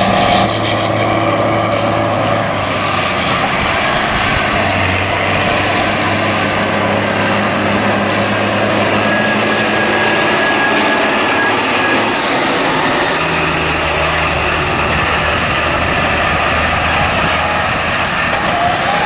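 Diesel farm tractors working a corn silage harvest, engines running loud and steady, with the engine note shifting about five seconds in and again about thirteen seconds in.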